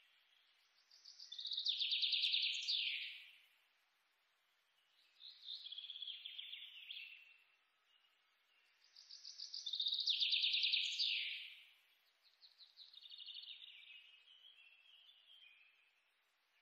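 A bird singing: loud trilled phrases of quickly repeated high notes, each ending in falling sweeps, alternating with softer trills a few seconds apart.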